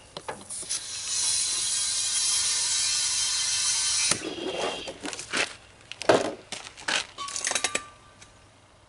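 Compressed air hissing steadily into a freshly seated tubeless lawn-tractor tire for about three seconds, then stopping suddenly, followed by scattered clicks and knocks of handling.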